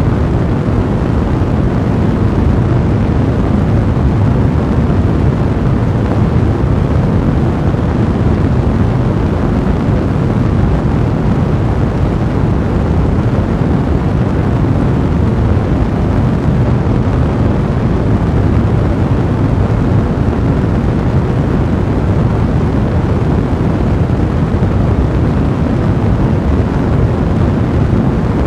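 Fire in a fireplace burning steadily, a dense, even, low rumble with fine crackle through it and no single pops standing out.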